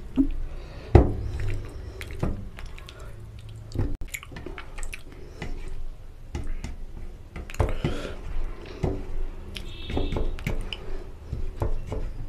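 Close-up eating sounds: wet chewing and mouth smacks, mixed with the squelch of fingers working rice into oily curry on a steel plate, as a string of short, sharp clicks and smacks.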